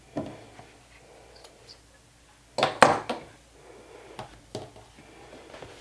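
A few light knocks and clicks of sewing tools and objects being handled on a worktable, loudest in a short cluster about two and a half seconds in.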